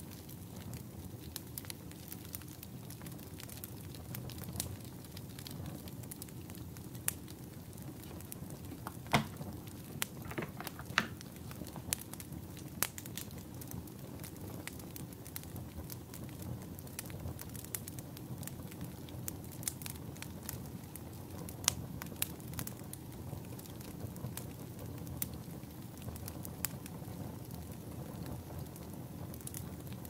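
Campfire of burning firewood crackling: a steady low rumble with irregular sharp pops and snaps, a few louder ones about nine to twelve seconds in.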